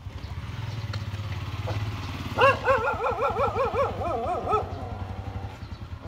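A small engine idles steadily underneath. About two and a half seconds in, a dog whines in a run of quick rising-and-falling cries lasting about two seconds.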